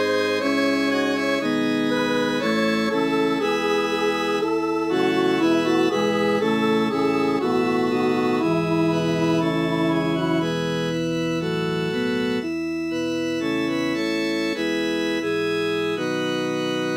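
Computer-rendered MIDI playback of a choral Christmas song arrangement, an alto part-practice track made in NoteWorthy Composer. Several parts sound together as held synthesized chords whose notes change in even steps.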